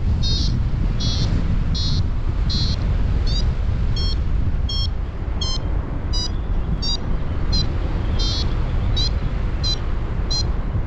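Paragliding variometer beeping in rising air: short high beeps, about one and a half a second, some gliding upward in pitch. Underneath is the steady low rush of wind on the microphone in flight.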